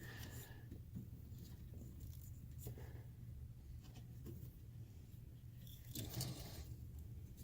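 Faint scrapes and light clicks of a brake light switch being worked by hand into its threaded mount, the switch not threading in, which the owner suspects is due to damaged threads. A low hum runs underneath.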